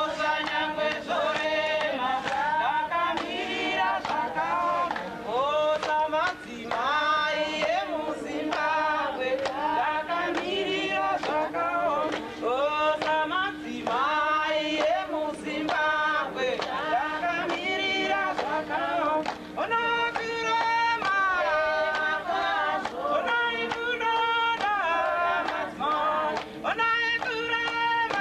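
Music of voices singing a melody in short phrases over a steady held low note.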